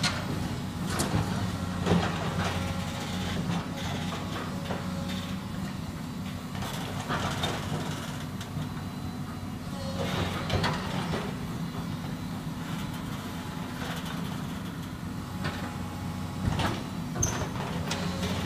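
Hydraulic excavator's diesel engine running steadily, with several short clanks and crunches scattered through as it works a pile of demolition debris.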